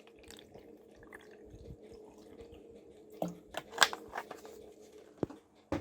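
Water trickling faintly into a steam vaporizer's water container, then several short, sharp clicks and knocks from handling the vaporizer's parts in the second half.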